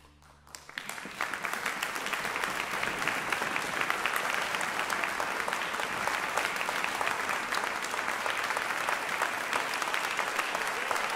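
The last chord of the chamber orchestra and piano dies away, then a concert-hall audience breaks into applause under a second in, building quickly to steady, dense clapping.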